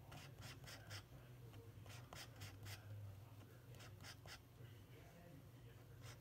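Faint scraping of a metal palette knife mixing oil paint on a palette, in quick clusters of short strokes with brief pauses between.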